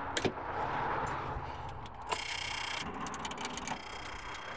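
A car's starter circuit clicking in quick chattering runs as the key is turned, with a short buzz about two seconds in. The engine doesn't turn over: power isn't getting through to the starter, which the owner puts down to a bad solenoid or a dead battery.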